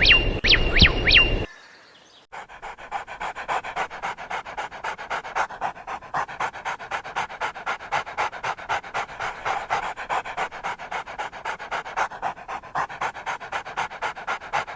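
A dog panting rapidly and evenly, starting about two seconds in. Before it, quick repeated bird chirps stop at about one and a half seconds.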